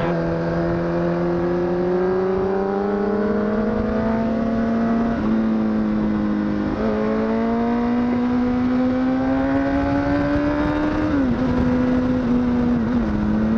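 Honda CBR1000RR (SC57) inline-four sport-bike engine heard from the rider's seat under way, its note climbing slowly with abrupt steps in pitch about five and seven seconds in and a drop about eleven seconds in, over wind rush.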